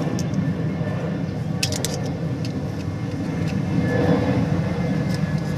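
Suzuki Multicab mini truck driving with its 4x4 front axle locked in: a steady low hum from the driveline, the front-differential humming that the owner traces to a defective pinion bearing. A few short sharp clicks come through, most clearly about a second and a half in.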